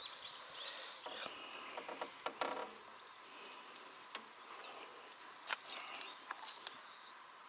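Faint insects calling, with a few sharp little clicks as fishing line and a jig rig are handled and tied.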